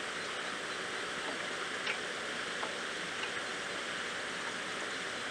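Steady outdoor hiss, like wind or running water, with a few faint clicks from metal parts as a wheel is worked onto a hand tractor's axle.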